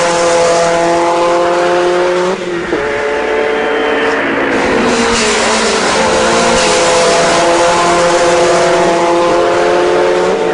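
Race car engine running at high revs over a steady hiss. Its pitch breaks abruptly about two and a half seconds in and again about six and a half seconds in.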